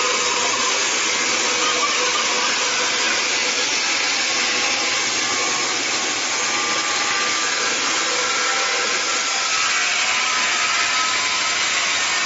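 MJ1600E horizontal band sawmill cutting through a large log: the band blade running steadily through the wood with a constant even sawing noise and a faint steady hum.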